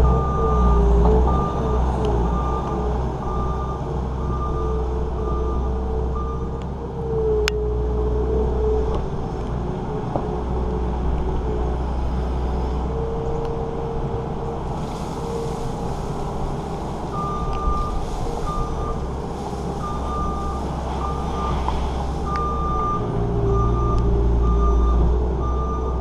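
New Holland L230 skid steer's diesel engine running steadily under work, with its backup alarm beeping at about one and a half beeps a second while it reverses. The beeping stops about seven seconds in and starts again near the end, when it backs up once more.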